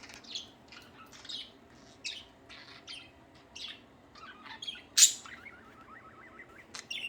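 Pet budgerigars chirping and chattering in short scattered calls, with one loud sharp call about five seconds in followed by a quick run of soft warbling notes.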